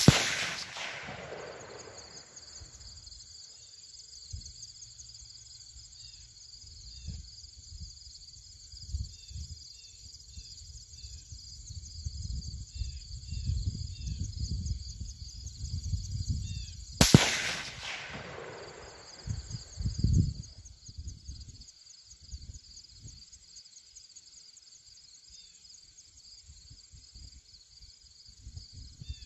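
Two rifle shots, heard from beside the target downrange, from a Ruger American 6.5 Grendel bolt-action: one right at the start and one about 17 seconds in. Each is a sharp crack with an echo trailing off. Between them are a low wind rumble on the microphone and insects chirping.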